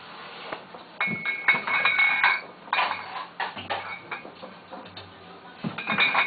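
Hard objects clinking and knocking in a series of separate strikes, some leaving a short ringing tone.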